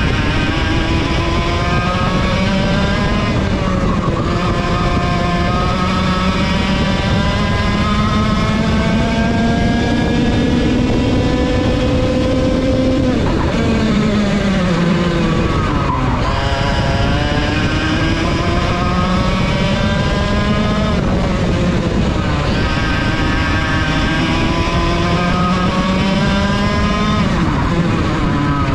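Racing kart's Vortex VLR 100cc two-stroke engine under hard acceleration, heard onboard. Its pitch climbs steadily down each straight, then drops sharply as the driver lifts for a corner, several times over.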